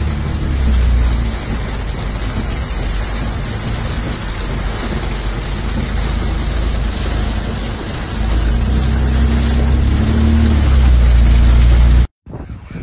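Heavy storm rain beating on a car's windshield and body, heard from inside the car, over a low rumble that swells about a second in and again from about eight seconds in. It cuts off abruptly near the end.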